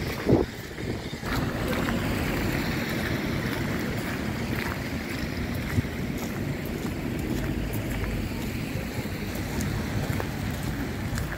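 Wind buffeting the microphone as a steady low rumble, with a brief thump just after the start.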